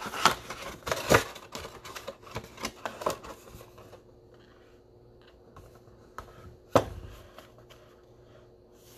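Foil trading-card packs crinkling and clicking as they are pulled from a cardboard box and handled over a wooden table, busiest in the first four seconds. About seven seconds in there is a single sharp knock as the box is set back down on the table.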